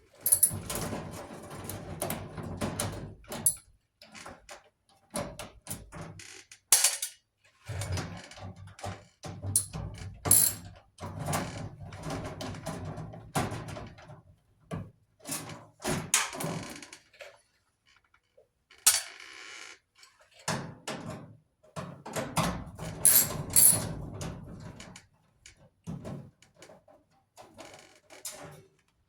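Irregular clicks, knocks and clatter of hand tools and sheet-metal panels being handled while a clothes dryer is taken apart.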